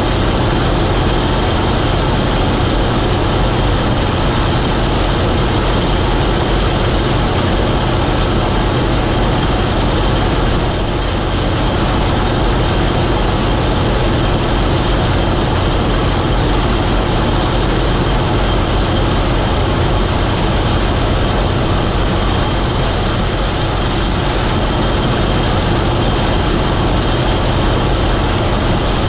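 Combine harvester running steadily while combining clover: a constant engine and threshing-machinery drone with a steady high whine.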